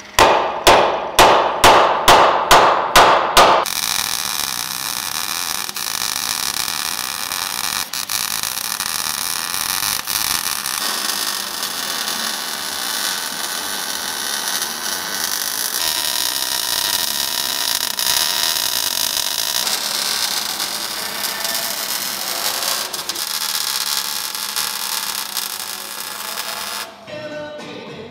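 A hand hammer striking a welded steel bracket on a truck frame about eight times in quick succession, each blow ringing. Then a long steady crackling hiss of arc welding on the frame, stopping and restarting a few times.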